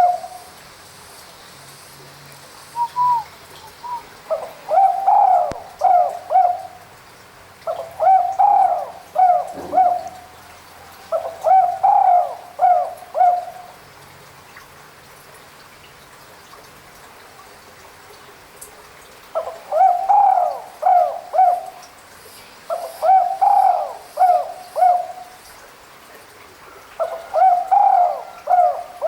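Spotted dove (tekukur) cooing. It repeats a phrase of a rising first note and two or three lower coos, one phrase every three seconds or so, with a pause of about six seconds midway.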